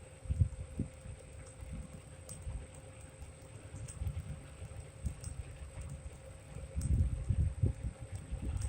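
Wind buffeting the microphone during an electric scooter ride in low, gusty rumbles, lighter through the middle and heavier again about seven seconds in, over faint steady riding noise.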